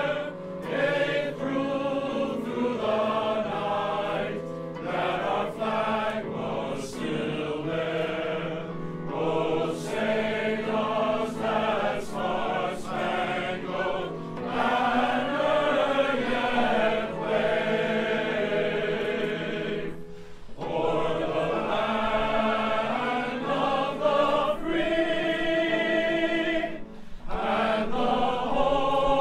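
Men's glee club choir singing an anthem in harmony, with a short break between phrases about two-thirds of the way through.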